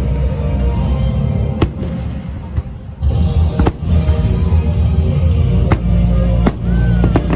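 Fireworks bursting overhead: about six sharp bangs, irregularly spaced and coming closer together near the end, over loud music with a heavy low bass.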